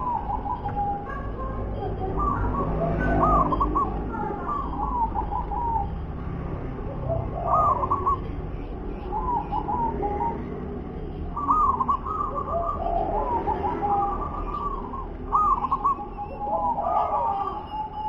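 Zebra dove (perkutut) cooing: short phrases of quick staccato notes, the 'wer-ke-te-pek' song, repeated every second or two.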